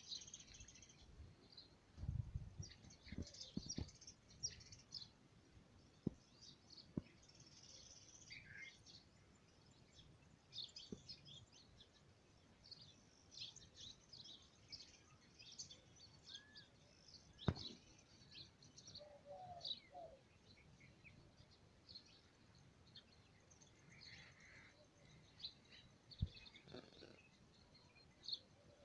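Faint chirping and twittering of many small birds, short high calls scattered throughout. A few dull knocks, the sharpest about two thirds of the way in.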